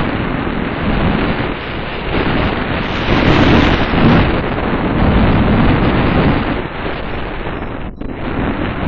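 Wind noise from air rushing over the microphone of a harness-mounted camera on a paraglider in flight: a loud, steady rush that cuts out briefly about a second before the end.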